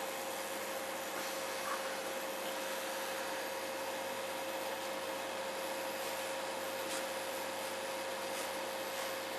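Hot-air rework station blowing a steady hiss with a faint steady whine, heating solder paste to reflow a replacement transistor onto the circuit board.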